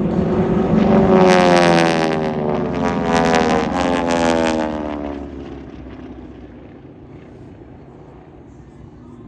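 Propeller-driven aerobatic airplanes flying past in formation. The engine drone swells, drops in pitch as they go by, then fades into the distance.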